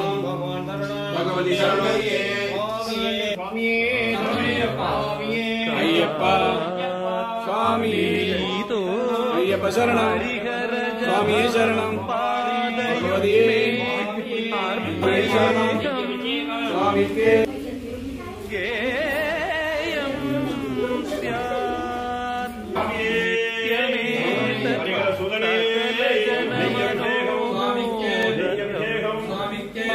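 Several voices chanting and singing a Hindu devotional chant together, continuing without a break.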